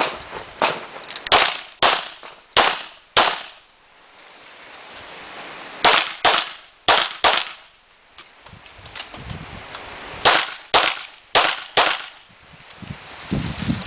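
Gunshots from a competitor firing an IPSC stage: a quick string of about six shots roughly half a second apart, a pause, four more, another pause, then four more. The pauses fit moving between shooting positions or reloading.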